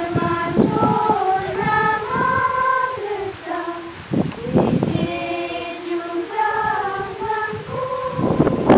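A group of women and children singing a hymn together as they walk in procession, holding long notes. A loud noisy burst cuts in near the end.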